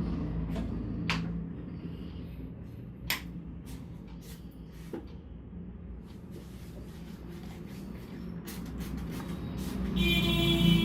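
Hands working on a head during a massage: scattered soft taps and rubbing over a steady low background hum. The taps come quicker near the end, where a brief high-pitched tone also sounds.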